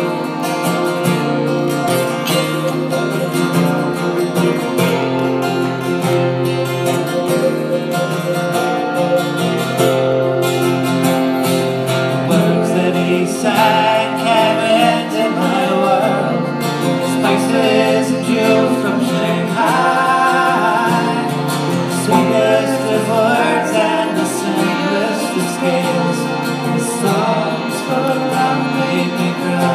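Acoustic guitar being strummed while a woman sings.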